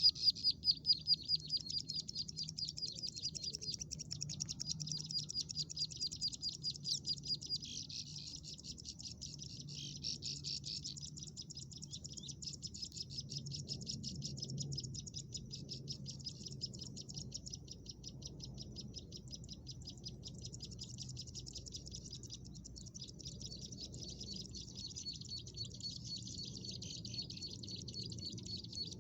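Ciblek sawah, a small field prinia, singing a fast, unbroken run of high, thin chirps, many to the second. The song is the call that draws the bird to the trap, and it is loudest at the start.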